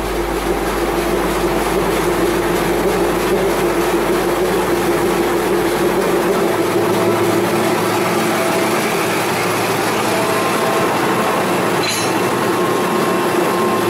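M4 class diesel locomotive idling close by, a steady drone whose deep rumble fades out about halfway through. A single sharp click comes near the end as the coupling gear is handled.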